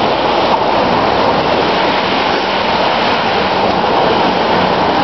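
A steady, loud rushing noise that stays even throughout.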